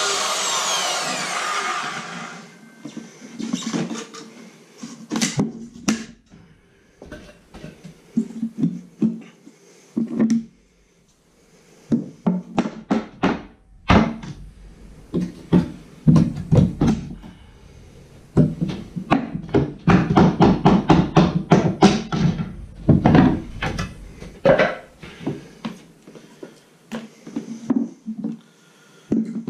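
A handheld circular saw running and stopping about two seconds in, then a long run of knocks and hammer blows on wooden floorboards, with a dense flurry of strikes in the middle.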